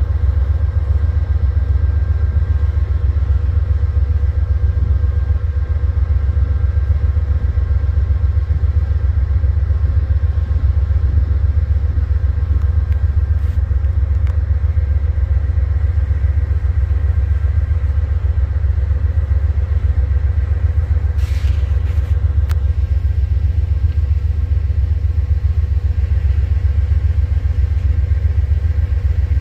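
Freight train rolling past: a loud, steady, deep rumble that does not let up, with a faint steady whine over it and a few short clicks about two-thirds of the way through.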